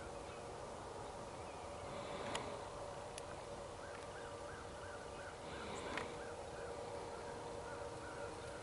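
Faint outdoor quiet over a low steady hum. A distant bird calls in an even run of short notes, about three a second, through the second half. There are a couple of soft clicks and brief rustles.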